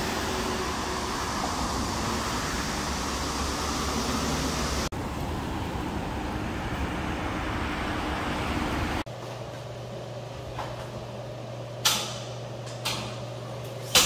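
Steady rushing background noise, like traffic or an air conditioner, that changes abruptly twice. It then drops to a quieter low hum with three sharp knocks near the end.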